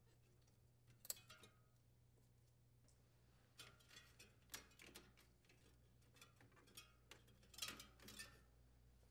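Faint sharp clicks and snips of hand wire cutters cutting through the old defrost heater's wires, with light handling noise of the wiring between cuts: one click about a second in and small clusters near the middle and near the end.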